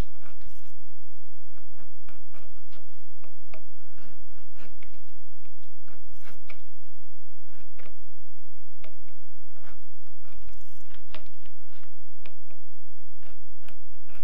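Edge beveler shaving the corners off a small leather washer: a run of short, irregular scraping cuts and clicks.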